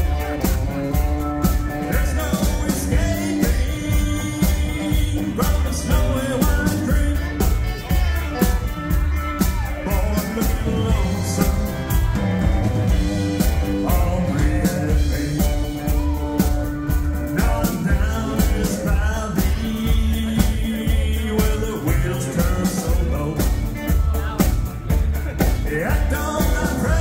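Live country band playing a steady-beat song on upright bass, drums, electric guitar and pedal steel guitar.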